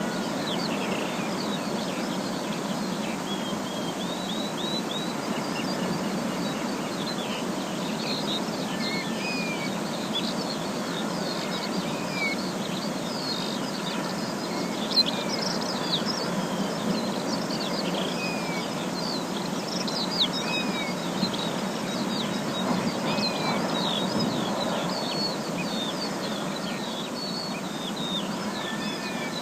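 Forest ambience: many birds chirping and calling at once, with short rising and falling notes throughout, over a steady low rushing background.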